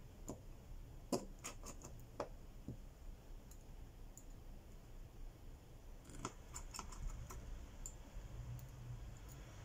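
Faint clicks and ticks of a precision screwdriver seating and turning small screws in a Redmi Note 8's frame. They come in two short clusters, about a second in and again about six seconds in.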